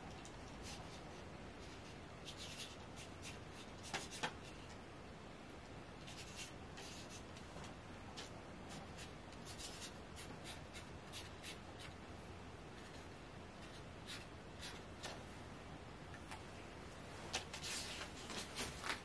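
Marker pen writing on a paper note card: faint scratchy strokes in short runs. There are a couple of sharp clicks about four seconds in, and louder scratchy strokes near the end.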